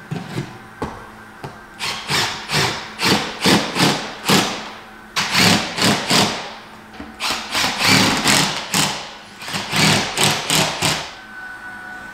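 Hammer blows on wood in four quick runs of several strikes, about three a second, with short pauses between the runs. They fit driving a wooden blocking piece into a wall cavity behind cut-out drywall.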